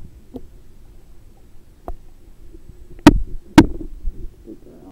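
Low muffled rumble from a camera held at the waterline of a swimming pool, with a light knock and then two sharp, loud knocks about half a second apart, as water and the paddling white tiger cub bump against it.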